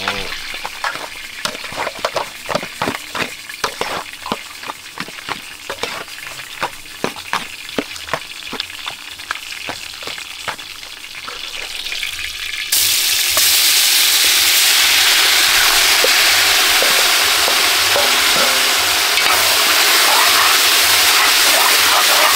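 Hot cooking oil crackling and popping in a large pot. About 13 seconds in, seasoned pork is tipped in and the oil breaks into a loud, steady sizzle.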